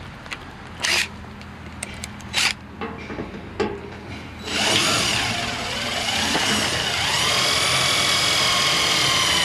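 A few sharp knocks and clicks of handling, then about halfway in an electric drill starts and runs with a high whine, its pitch sagging briefly as the bit bites into the steel tool box before holding steady. The drill bit is being used to enlarge and trim the latch hole.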